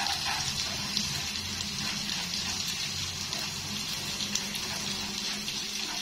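Corn frying in a pan: a steady sizzle, with a few light clicks.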